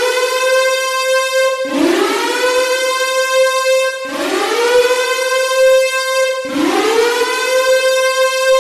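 Siren sound effect: a loud, rich tone that winds up in pitch and then holds, restarting about every two and a half seconds in a repeating loop.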